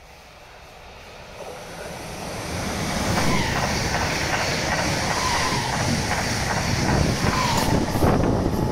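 Electric multiple-unit passenger trains passing through a station: rail rumble and wheel noise swell over the first few seconds as a train comes past close by, then stay loud, with a faint whine running under them.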